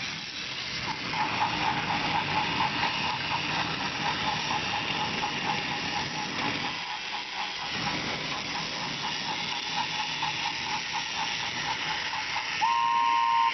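Battery-powered Trackmaster toy engine running along plastic track, its motor and gears whirring with a rapid, even clicking as it pulls a train of toy cars. A short steady tone sounds near the end.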